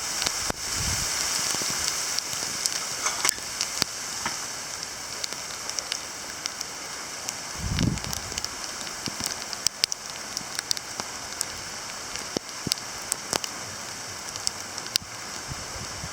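Small ice pellets and rain falling, a steady hiss of precipitation with many sharp, irregular ticks of pellets striking surfaces. A brief low rumble about eight seconds in.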